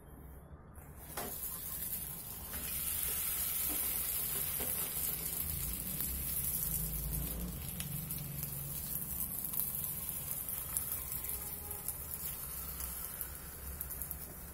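Wheat-flour ada batter sizzling on a hot iron tawa, the steady hiss starting about a second in as the batter is laid onto the pan from a banana leaf and pressed out.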